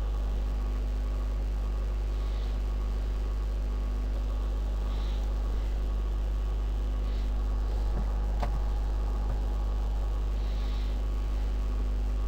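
Steady low electrical hum with faint background hiss, and a single faint click about eight seconds in.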